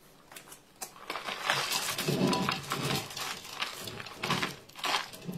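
Sliced almonds poured from a plastic container, falling in many quick clicks and rattles onto the bottom of a metal bundt pan.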